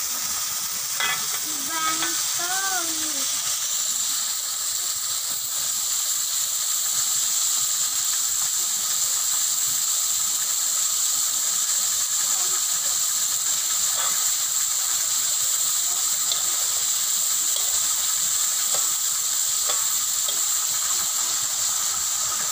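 Flour-battered squid deep-frying in hot oil in an aluminium wok: a steady sizzle, with a few faint clicks as metal tongs turn the pieces against the wok.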